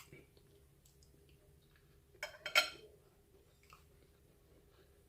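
Eating sounds close to the microphone: soft mouth noises and small clicks, with a brief louder double noise about two and a half seconds in.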